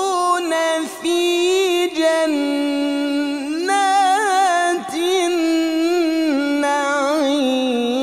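A man reciting the Quran in the melodic mujawwad style, drawing the words out in long, ornamented lines of wavering, stepping pitch with a few very brief breaks.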